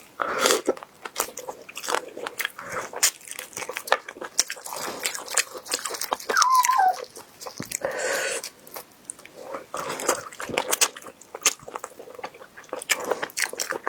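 Close-miked biting and chewing of crunchy duck heads, with many sharp, irregular crunches. A short falling squeak comes about six seconds in.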